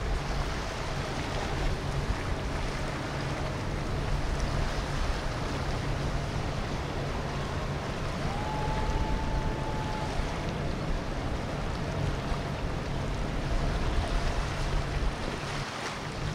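Boat engines running on the river with steady water wash: a low engine drone throughout under a rushing haze. A faint thin high tone steps up in pitch for about two seconds midway, then drops back.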